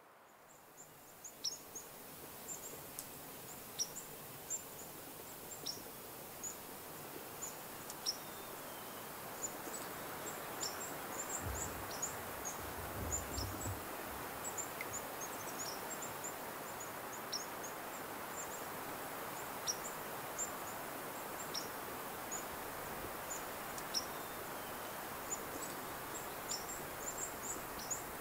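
Outdoor evening ambience that fades in at the start: many short, high bird chirps scattered throughout over a steady background hiss, with a brief low rumble near the middle.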